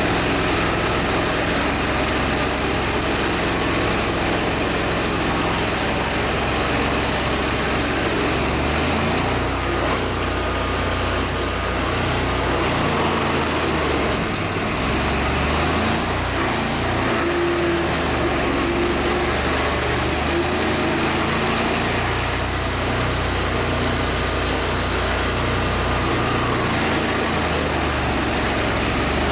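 An engine-driven machine running steadily, its low engine note shifting up and down several times as the load changes.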